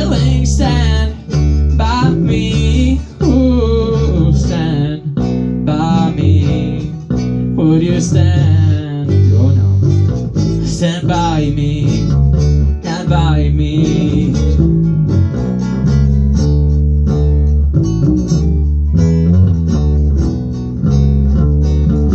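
A song played live on guitar and bass guitar, with a voice singing over about the first two-thirds; after that the guitars and bass carry on without the voice.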